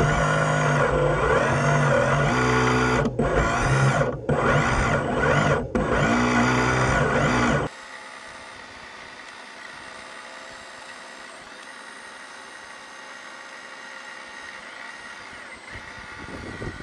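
Radio-controlled hydraulic excavator's electric hydraulic pump whining, its pitch shifting as the boom and bucket move. It is loud and close for about the first eight seconds, with a few brief dropouts, then suddenly much quieter and steadier as the bucket digs.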